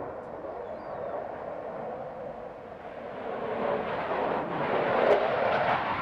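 Jet noise from a Eurofighter Typhoon's two EJ200 turbofan engines as the fighter flies close past, swelling to its loudest about five seconds in.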